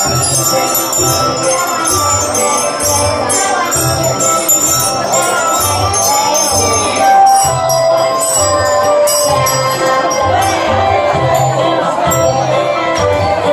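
Children's song music with a steady beat and jingling bells.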